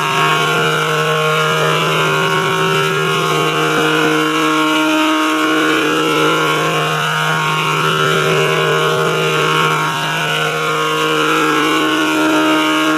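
A sustained drone of several steady held tones over a constant hiss.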